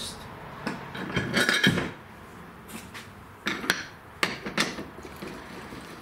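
Metal clanks and knocks as a riding-mower wheel on its rim is set down onto a manual tire changer's centre post and a metal spacer is slid down the post. There is a clatter of several impacts between one and two seconds in, then a few separate sharp knocks.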